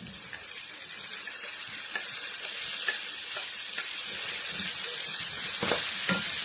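Chopped onion sizzling as it fries in hot oil and butter in a pan, the sizzle swelling as it goes in and growing louder. Near the end a few knocks of a utensil stirring it in the pan.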